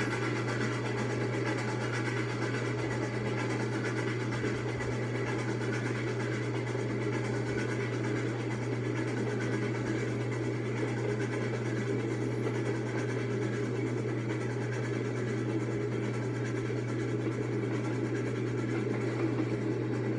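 A passenger train running steadily: an even rolling rumble over a constant low hum, unchanging throughout, with no distinct beats or individual clanks.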